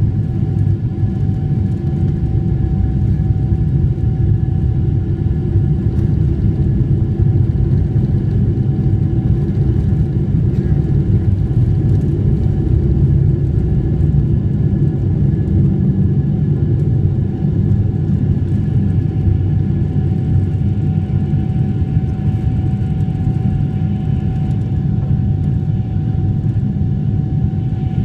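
Boeing 747 turbofan engines at takeoff thrust heard from inside the cabin during the takeoff roll and liftoff: a loud, steady low rumble with a fan whine held at a steady pitch.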